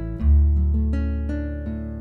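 Background music: a light tune of plucked notes over a deep bass note that comes in about a quarter second in.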